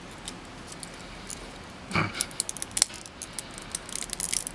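Small, sharp plastic clicks and snaps as support material is picked and broken away from a 3D-printed part, clustering about two seconds in and again near the end, with one brief thump about two seconds in.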